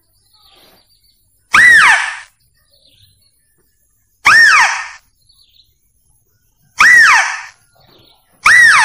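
Hunting lure call for lesser mouse-deer (pelanduk kancil): a short, loud cry that rises then falls in pitch, repeated four times two to three seconds apart.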